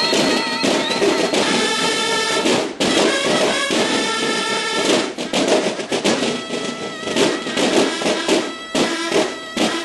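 Mexican banda de guerra, a military drum and bugle band, playing: field drums beat rapid strokes and rolls under held bugle notes.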